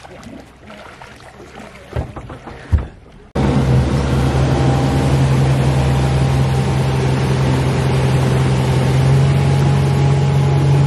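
Motorboat engine running with a steady low drone, coming in loud and sudden about three seconds in. Before it there is a quieter stretch with two sharp knocks.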